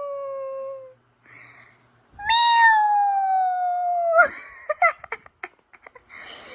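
Cat meows: two long, drawn-out calls, each sliding down in pitch. The first ends about a second in, and the second starts about two seconds in and lasts about two seconds. A few short clicks and small noises follow it.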